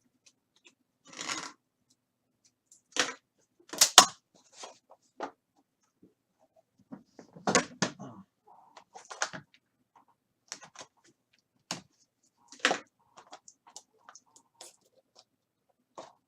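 A sealed box of trading cards being unwrapped and opened by hand: plastic wrap and packaging crinkling and tearing, with cardboard scraping and small knocks. It comes in short irregular bursts, loudest about four and seven and a half seconds in.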